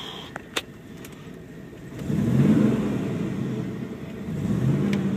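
1991 Ford Bronco's 302 V8, with an aftermarket cam, headers and Flowmaster exhaust, idling and then revved twice, heard from inside the cab: a strong rev about two seconds in that rises and falls back, and a smaller one near the end.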